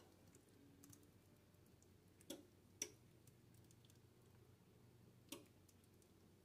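Near silence: faint room tone with three brief, faint clicks, two close together a little over two seconds in and one about five seconds in.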